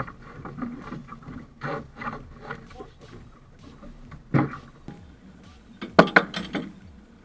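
Knocks and clatter of fishing gear being handled at the stern of a small sport-fishing boat as a fish on the line is brought alongside. There is a strong knock about four seconds in, and the loudest is a sharp burst of clatter about six seconds in.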